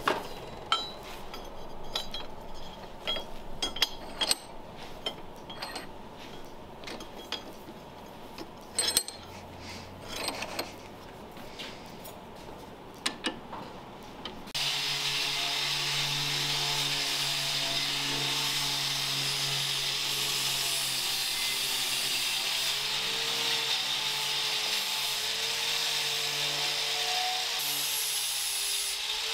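Clicks and knocks of a steel bracket being handled and clamped in a bench vise. About halfway a power tool starts on the metal and runs steadily, its motor pitch wavering slightly under load.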